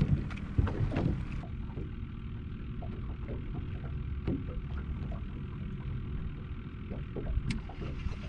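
Steady low rumbling of wind on the microphone, with scattered faint ticks and one sharper tick about seven and a half seconds in.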